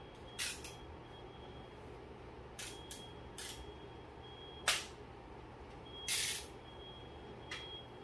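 Several brief rustling hisses from handling new slippers and their plastic packaging, with one sharper click about halfway through.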